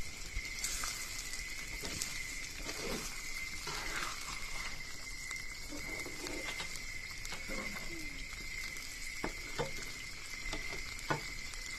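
Tomato spaghetti sauce with meat sizzling in a pan as a spatula stirs and scrapes through it, with a few sharp knocks of the spatula on the pan near the end.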